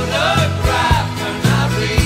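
Pop song with a man singing the lead over drums and a full band, the drums striking at a steady beat.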